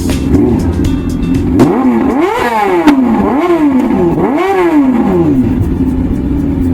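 Motorcycle engine idling, then revved three times in quick succession, each rev rising and falling in pitch, before it settles back to a steady idle. The engine has just been started from cold.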